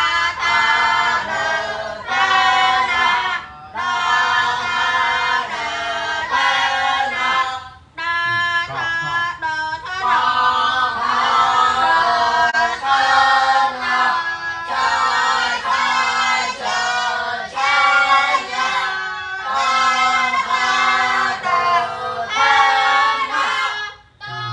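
A group of voices reciting a Khmer text together in a sing-song chant, phrase by phrase with short pauses between lines.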